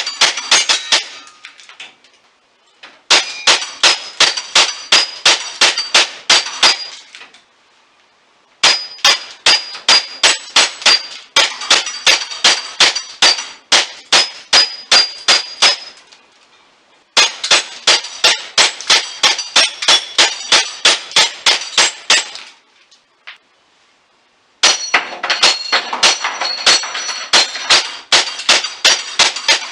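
Rapid strings of airsoft shots striking small steel target plates, each hit a sharp clang with a short metallic ring, about three a second. The shooting comes in four runs of several seconds, with short pauses between them.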